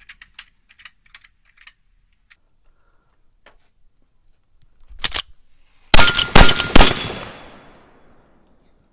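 Winchester 1873 lever-action rifle firing black-powder cartridges: three very loud shots in quick succession, about half a second apart, with a long decaying boom after the last. Faint clicks come first, and a louder clack about a second before the shots.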